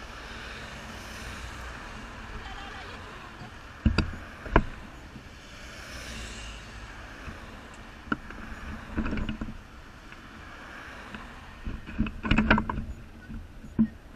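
A car and a motorcycle passing along the road, then another car, as a steady rush of engine and tyre noise, broken by several sharp knocks: two about 4 seconds in, one about 8 seconds in, a cluster about 12 seconds in, and one near the end.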